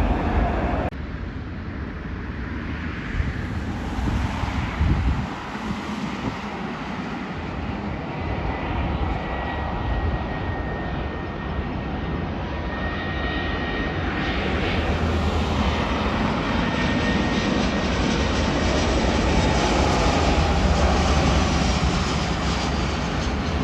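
Airbus A319's CFM56 jet engines running on a landing approach: a steady engine rush with a faint thin whine, growing louder as the aircraft comes closer.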